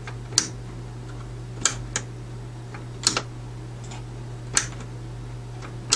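Mains power push-button switch of a Radiotekhnika U-101 stereo amplifier pressed by hand several times, giving sharp mechanical clicks roughly every second, some of them doubled. The switch switches cleanly, so it works, and the fault lies in the worn contact between the front-panel key and the button's moving part.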